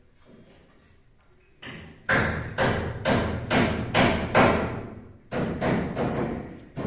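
Hammer driving nails into timber: a steady run of sharp blows, about two a second, starting about two seconds in, with a brief break before they carry on.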